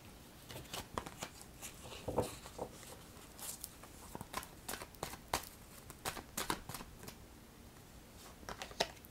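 Tarot cards being handled and shuffled in the hands: an irregular string of short papery snaps and rustles, busiest in the middle.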